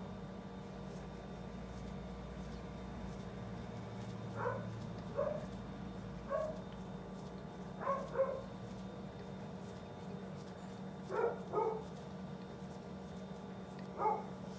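A dog barking in short, high barks, about eight of them, some in quick pairs, starting about four seconds in, over a steady low hum.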